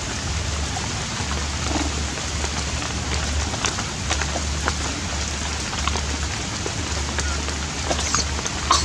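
Steady rain pattering on leaves and a shelter, with scattered sharper drips. A low hum comes and goes underneath.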